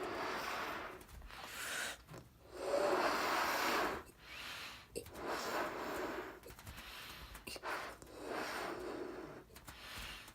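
Rubber balloon vibrating with a rough, rasping buzz that comes in repeated surges of a second or two each, with short dips between them; the strongest surge comes about three seconds in.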